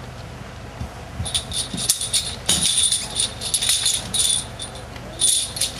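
Metallic jingling and rattling in quick, irregular bursts, starting about a second in and loudest around the middle. A steady low hum runs underneath.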